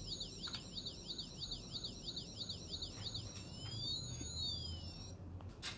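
Electronic toy police siren from the push-button siren piece on a LEGO police car: a high, fast up-and-down warble that changes about three seconds in to a slower rising-and-falling wail, then stops near the end.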